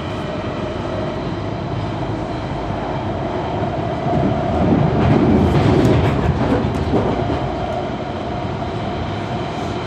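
London Underground Central line train running on the track: a steady rumble with a constant whine, growing louder for a few seconds in the middle, with a few clicks of wheels over rail joints.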